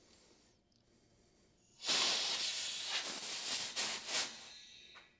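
Compressed air hissing from an air gun nozzle into a rubber golf grip on a taped shaft. The hiss starts suddenly about two seconds in, is loudest at its start and trails off over about three seconds.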